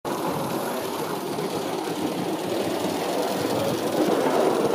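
Live-steam model steam railcar running on a garden railway track: a steady mechanical running noise with steam hiss.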